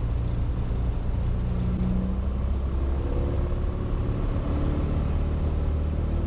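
Piper Cherokee 180's four-cylinder Lycoming engine and propeller running, heard from inside the cabin, at the start of the takeoff run. Its tone shifts about three seconds in, with new, higher notes joining the steady drone.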